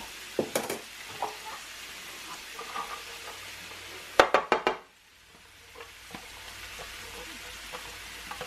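Sliced mushrooms sizzling in butter in a nonstick skillet, with a few clicks of a spatula stirring near the start. A little after four seconds in, chopped onions are tipped into the pan with a quick clatter; the sizzle then drops away for a moment and slowly builds back.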